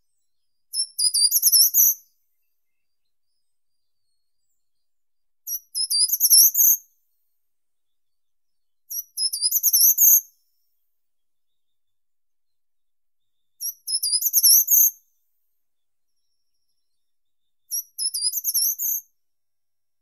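Short-toed treecreeper singing: five short, high-pitched song phrases, each about a second long and opening with a single note before a quick run of notes, repeated every four seconds or so.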